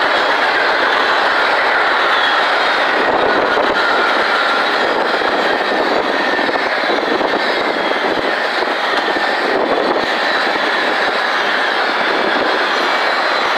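Freight cars of a CSX manifest train rolling past at trackside: the steady, loud noise of steel wheels running on the rails.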